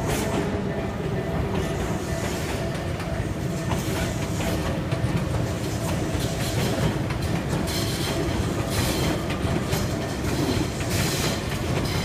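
Tobu Skytree Line train running past at ground level, a steady rumble with its wheels clicking over the rail joints, the clicks coming thicker in the second half.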